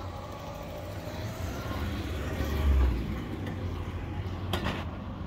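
Low steady rumble of town street ambience, swelling briefly around the middle, with one sharp click near the end.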